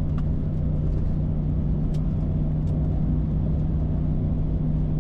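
Ford SVT Raptor's 6.2-litre V8 running at a steady pace on a dirt trail, a low even drone with no revving, with a few faint ticks over it.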